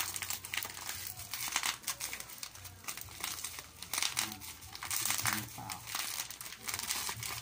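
Plastic packaging crinkling and crackling in irregular bursts as it is handled and turned over.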